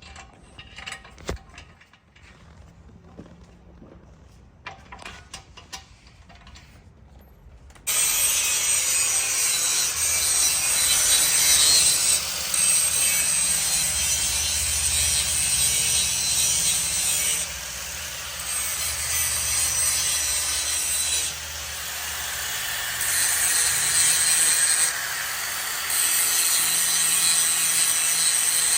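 A few small knocks and clicks, then about eight seconds in a power tool starts suddenly with a loud, steady noise and runs in stretches of a few seconds, easing off briefly several times.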